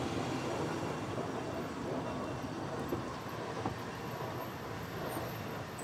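Ffestiniog Railway narrow-gauge train rolling slowly along the platform: a steady rumble of wheels on the rails, with a couple of light knocks about three seconds in.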